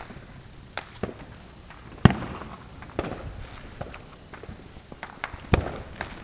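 Consumer fireworks going off: scattered sharp pops and bangs, with one louder bang about two seconds in that rings out briefly.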